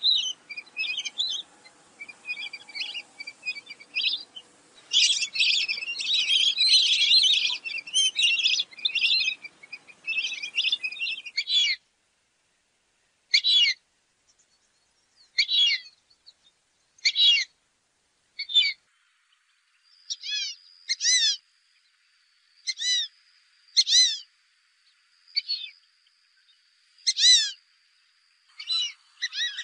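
Fulvous whistling ducks calling with high, squeaky whistles. For about the first eleven seconds a flock calls densely and overlapping. After a sudden break, single rising-and-falling whistles come one at a time, every second or two.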